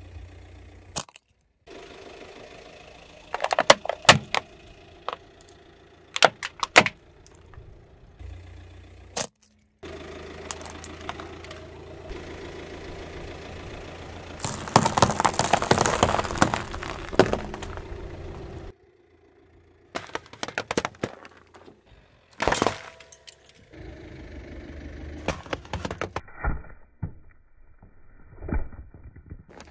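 A car's tyre slowly rolling over and crushing items on asphalt in a series of short cuts: sharp cracks and pops, a longer crunching stretch in the middle, and soda cans bursting near the end, over a low steady engine hum.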